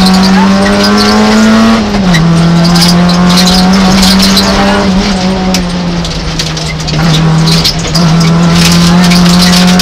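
Peugeot 106 F2012 rally car's engine heard from inside the cabin, running hard at high revs. Its pitch climbs slightly, then drops at an upshift about two seconds in. It then holds steady, with a brief dip near seven seconds before picking up again.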